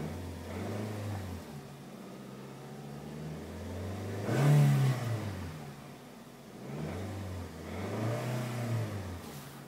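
The 2006 Nissan X-Trail's 2.5-litre four-cylinder engine revved in park, heard from inside the cabin. The engine note rises and falls back three times, up to around 3,000 rpm, with the loudest rev about halfway through.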